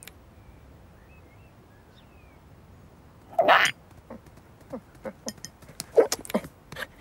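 Voiced cartoon bird sounds. Faint little chirps come first, then one loud squawk a little after three seconds that falls in pitch, followed by a scatter of quick clicks and short peeps.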